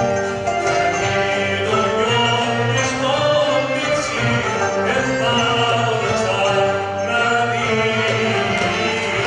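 Traditional Cypriot folk music: a man singing into a microphone, accompanied by violins and lutes.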